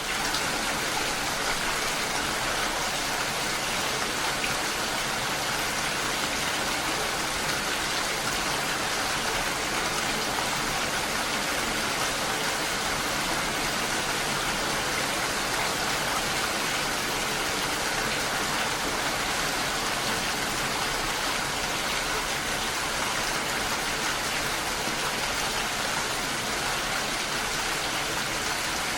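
Steady rain falling on a lake: an even, unbroken hiss of rainfall.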